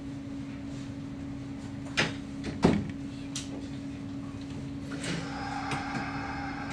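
Electric commuter train at a standstill about to depart. A steady hum, two sharp clicks a couple of seconds in, then from about five seconds in the traction motors' whine sets in as the train starts to move off.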